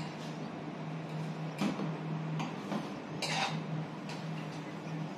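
Metal tongs clinking and scraping against a frying pan as pork medallions are lifted out and set on a plate: a few separate clinks and one short scrape. A low hum comes and goes underneath.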